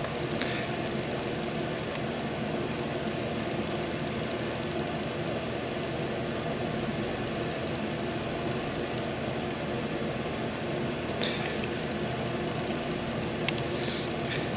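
Steady mechanical hum of a small motor, with a few brief crackles, once near the start and a few times near the end, as the soldering iron tip touches flux and solder on the joint.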